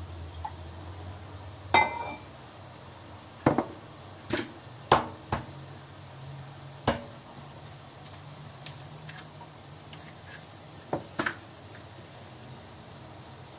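Eggs being cracked against a glass bowl: a string of sharp knocks and glassy clinks, about eight in all, bunched in the first half with a last pair near the end.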